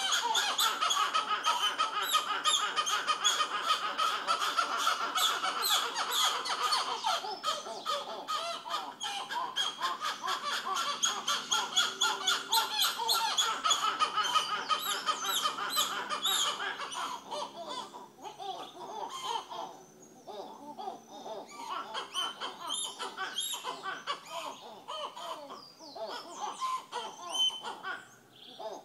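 Monkeys calling in a tree with rapid, repeated chattering cries, loud and continuous for about the first two-thirds, then thinning out to scattered, quieter calls.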